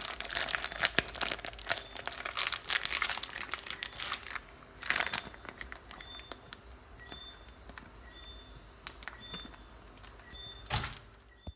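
Plastic packaging crinkling as it is handled, densely for the first four seconds or so, with another short burst about five seconds in; after that only faint, scattered rustles.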